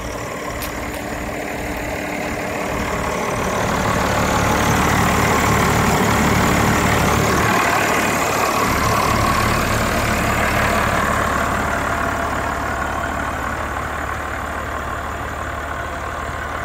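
John Deere 6800 tractor's six-cylinder diesel engine running steadily under load as it pulls a plough through the soil. It grows louder a few seconds in, as the tractor comes close by, and eases off again in the last few seconds.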